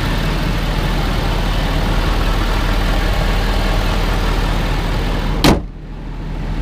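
Ford 6.7 L Power Stroke V8 diesel idling with the hood open. About five and a half seconds in the hood slams shut with one loud bang. After that the engine sounds muffled.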